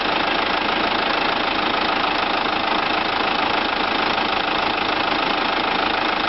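Kia Bongo 3's J3 2.9-litre four-cylinder common-rail diesel idling steadily at about 800 rpm on newly fitted Delphi injectors.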